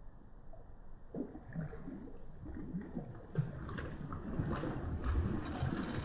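A swan splashing in shallow pond water, the splashing starting about a second in and growing louder toward the end as it beats the surface.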